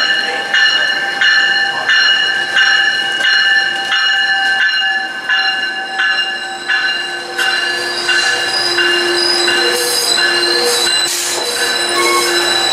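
A train rolling past, its wheels squealing in several steady high tones. A rhythmic clack comes about every two-thirds of a second through the first half, then the squeal runs steadier, with a lower tone joining in.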